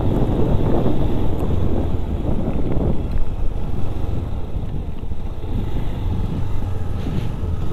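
Wind rushing and buffeting over the microphone of a moving motorcycle, with the engine running steadily underneath.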